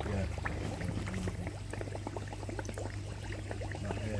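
Pond water bubbling and trickling in a quick, irregular patter over a steady low hum.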